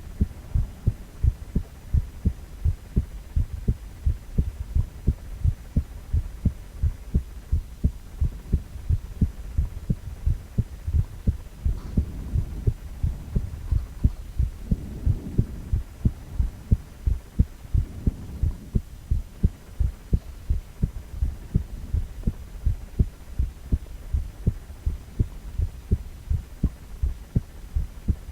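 A man's heartbeat: a steady, even run of low thumps.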